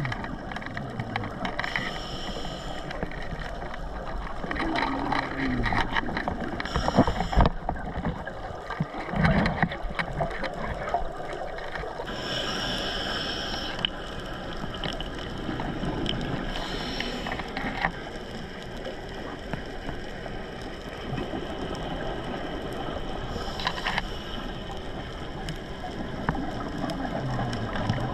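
Underwater sound of a scuba diver breathing through a regulator. A hiss of inhalation and a burst of bubbling exhalation come every four to five seconds, over a steady low rush of water.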